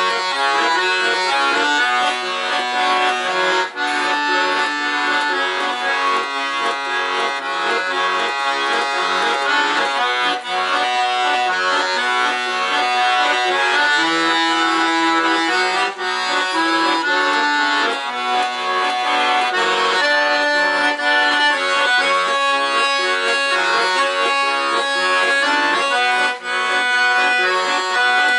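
Weltmeister accordion played solo: a wartime song with melody over chords, running on without a break.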